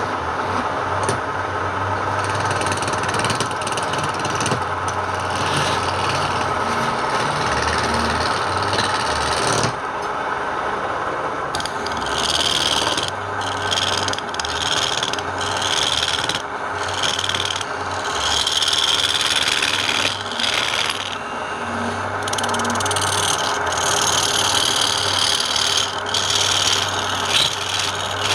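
A woodworking power tool's motor running steadily while it works wood, the cutting noise rising and falling as the tool bites and eases off, getting harsher about twelve seconds in.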